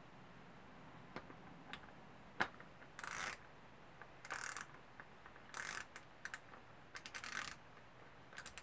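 Faint mechanical handling of a small single-cylinder pit-bike engine: five short rasping, ratchet-like bursts roughly a second apart, with a few sharp metallic clicks in between.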